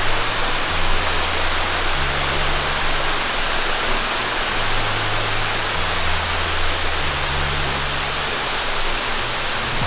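Steady rushing hiss of a waterfall's falling water. Under it runs the slow bass line of a background music track, its low notes changing every second or so.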